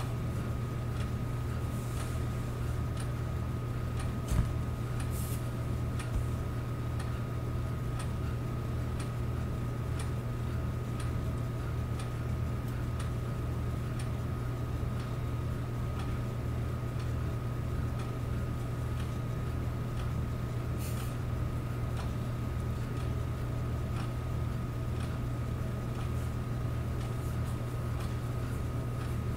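8mm film projector running: a steady hum with a fast, even flutter from the mechanism and faint regular ticks about once a second. Two short clicks come about four and six seconds in.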